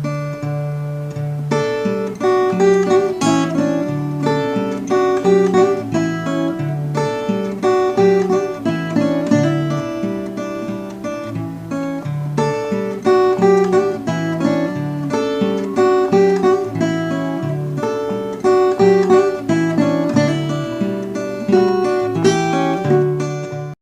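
Background music: acoustic guitar picking a melody over a repeating bass line.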